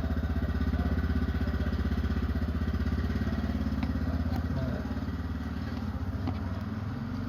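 Motorcycle engine running with a rapid, even putter, getting quieter about five seconds in.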